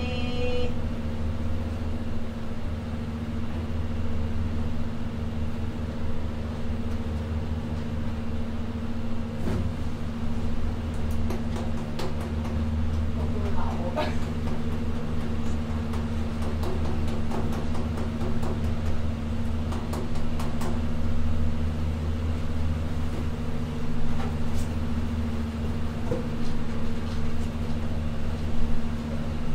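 Steady low mechanical drone with a constant pitch. Scattered light knocks and squeaks sound over it.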